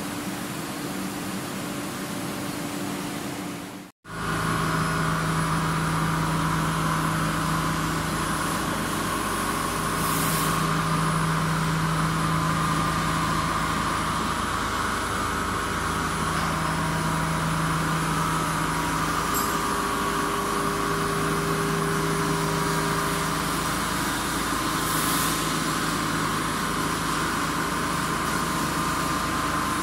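Steady hum of running machinery, several even tones over a noisy whirr. It cuts out abruptly about four seconds in and comes back louder.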